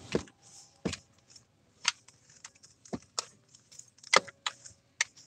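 Scattered clicks, taps and rustles of a phone and other small objects being handled and moved about inside a car, about seven sharp ones spread unevenly across a few seconds.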